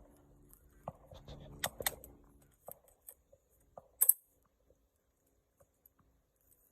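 A few sharp clicks and taps, the loudest about four seconds in, over a low steady hum that stops after about two and a half seconds.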